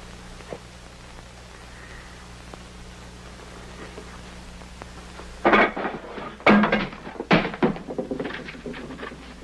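Steady low hum of an old film soundtrack, then, a little past halfway, a run of loud irregular thuds and clatters with rustling between them as things on a wooden bureau are rummaged through.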